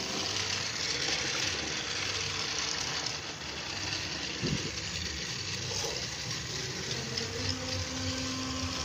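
Battery-powered toy train's small electric motor whirring steadily as it runs on plastic track.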